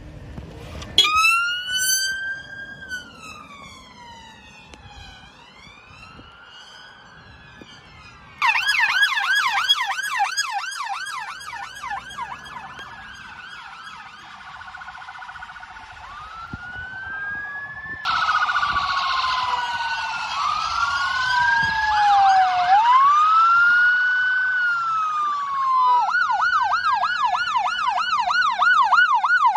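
Emergency vehicle sirens on departure. A slow rising and falling wail starts about a second in, a fast yelp cuts in loudly a third of the way through, then two or more sirens overlap with wails and yelps, and a fast yelp runs again near the end.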